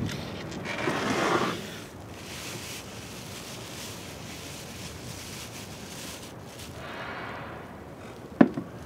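Soft handling of clay and a cloth at a table outdoors: a brief rush of hiss about a second in, then a low steady background, and a single sharp knock with a short ring near the end.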